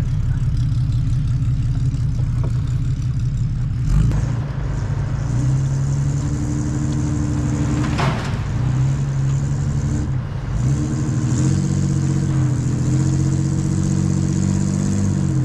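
Vehicle engine running under load, revving up, easing off about ten seconds in, then pulling again. There is a brief rattling noise around eight seconds in.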